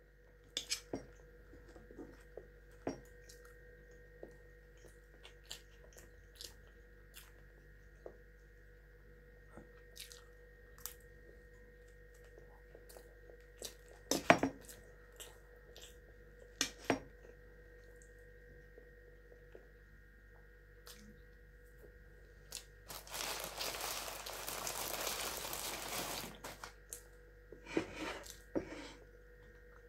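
Close-up eating sounds: a fork clicking and scraping on a metal frying pan and chewing of fried potatoes and bread, over a steady faint hum. About three-quarters of the way through, a few seconds of paper bag rustling.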